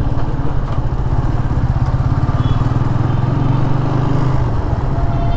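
TVS Apache RTR 180's single-cylinder engine running steadily under way through its stock exhaust, a grunty note, easing slightly in pitch about four and a half seconds in.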